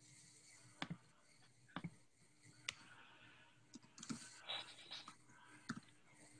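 Near silence, broken by a handful of faint, scattered clicks from computer keyboard and mouse use.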